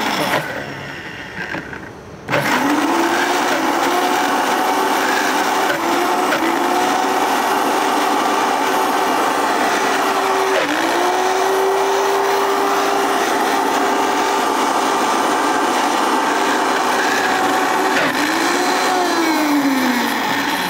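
Countertop blender pureeing cooked beans with added water: the motor winds down at the start, starts again about two seconds in and runs steadily. Its pitch dips briefly a few times and swings up and down near the end as it works through the thick bean paste, which has been thinned with water to help it break down.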